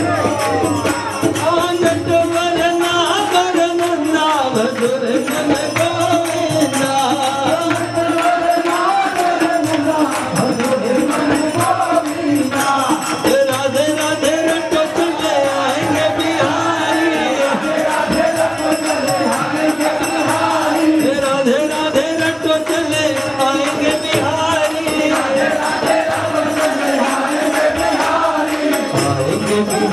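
Live Hindu devotional bhajan: a lead singer on a microphone and a crowd singing together with musical accompaniment, continuous and loud.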